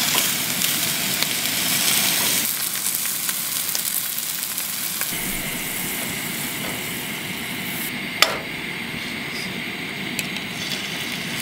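Food sizzling in a hot frying pan: sausage patties, then fat spread around the pan, with utensil stirring sounds. One sharp tap about eight seconds in.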